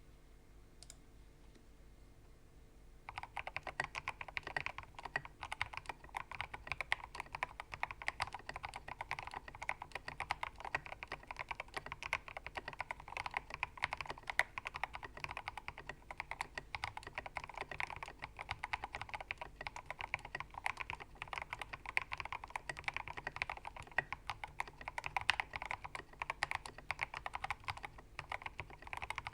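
Ramaworks Kara mechanical keyboard, with internal dampeners and lubed, filmed switches, being typed on at a fast, steady pace. Continuous key clacks start about three seconds in.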